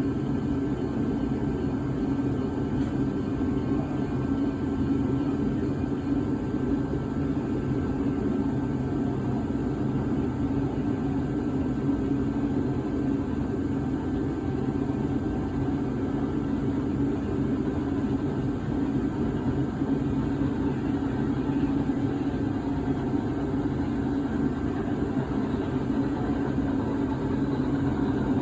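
HO scale model train running steadily on its layout, pushing a Russell snowplow: a constant engine-like hum that keeps an even pitch and loudness.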